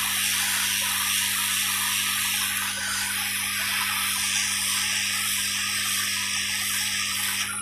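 Hot air gun blowing with a steady hiss and a low electrical hum, reflowing solder paste under an IC on a Bluetooth MP3 panel board to seat it. The airflow cuts off near the end.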